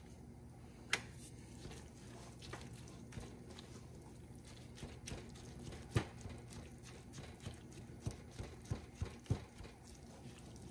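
Kitchen utensil clicking and knocking against cookware while taco filling is stirred, ending with a run of about five quick taps.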